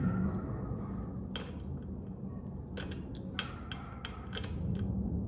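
Scattered light metallic clicks and taps of an Allen key working the mounting bolts of a hydraulic disc brake caliper as they are tightened, over a steady low hum.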